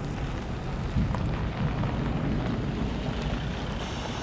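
Low, steady jet rumble of a Boeing 737-400's CFM56-3 turbofan engines, slowly fading.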